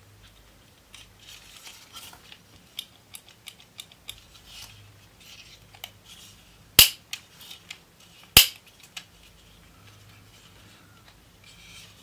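Small taps and scrapes of a screwdriver and plastic model-car parts being handled, then two sharp, loud plastic clicks about seven and eight and a half seconds in, as a movable part of the model is worked.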